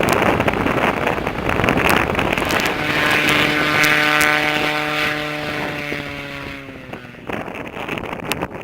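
Airboat engine and propeller running, heard through heavy wind buffeting on the microphone. From about three seconds in, the engine drone stands out clearly, then falls in pitch and fades away about seven seconds in.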